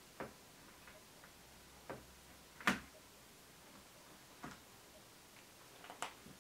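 Five sharp taps and clicks, a second or more apart, the loudest a little under three seconds in: a clear plastic ruler and marker being handled and set down on a desk.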